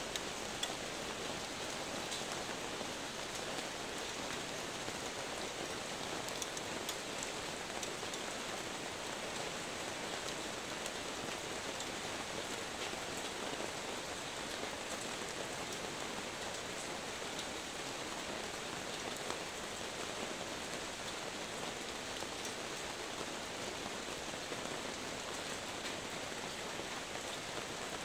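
Steady rain falling on wet paved ground, an even hiss flecked with faint drop ticks.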